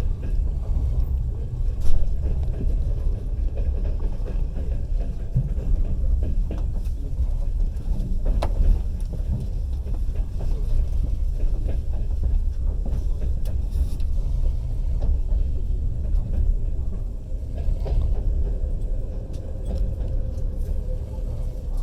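Passenger train carriage rolling on the rails: a steady low rumble of wheels and track, with an occasional sharp knock.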